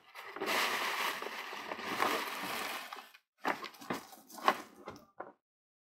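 Crinkling rustle of a shiny metallic gift bag being handled as a boxed gift is pulled out of it: a continuous rustle for about three seconds, then a few shorter rustles.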